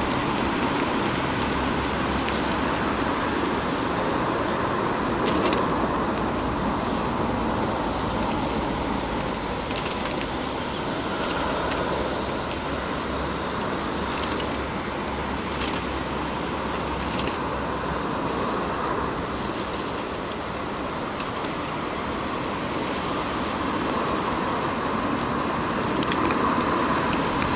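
Steady outdoor background noise, an even rushing hiss with no clear source, broken by a few faint clicks.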